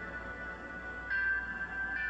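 Soft background music of sustained, bell-like notes, with a new note coming in about a second in.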